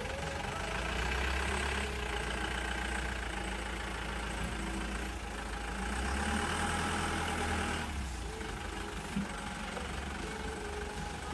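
Tata 407 tow truck's diesel engine running at low revs as the truck pulls away slowly, towing a wrecked car; it picks up a little about a second in and again around six seconds in.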